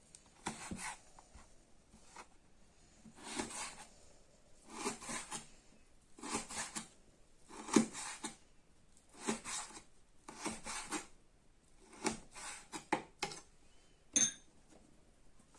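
Kitchen knife cutting beef fat into small pieces, in short groups of scraping strokes about every second and a half. A short metallic clink near the end.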